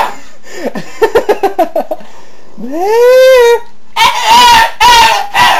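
Dog making its odd, non-bark vocal noise: a quick run of short pulsed sounds, then one long call that rises and falls in pitch, then three loud short calls.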